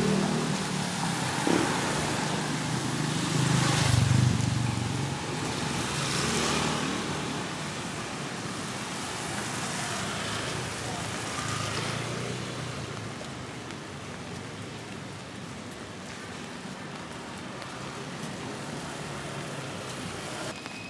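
Road traffic on a rain-wet street: several vehicles pass in the first seven seconds, their engines rumbling and their tyres hissing, each swelling and fading. The traffic then thins out to a steady, quieter hiss of rain.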